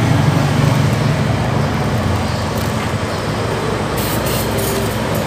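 A steady low rumble, with a short hiss of aerosol disinfectant spray about four seconds in.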